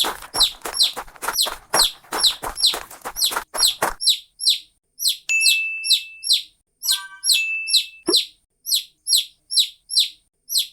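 Bird chirping sound effect: a quick high chirp that falls in pitch, repeated evenly about two or three times a second. For the first four seconds it sounds fuller and rougher, then cleaner, with a short held whistle-like tone twice in the middle.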